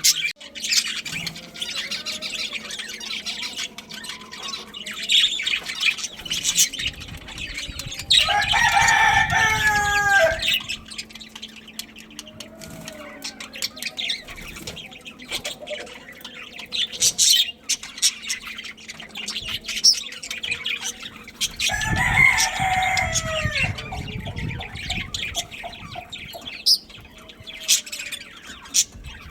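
A rooster crowing twice, each crow about two seconds long and falling in pitch at the end, over the constant high chirping of a flock of budgies.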